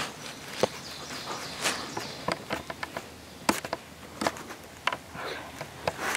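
Footsteps crunching through dry leaf litter on a forest floor, an uneven run of rustling crunches and sharp cracks.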